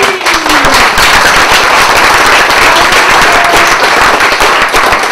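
Audience applauding, a loud, dense clatter of many hands clapping.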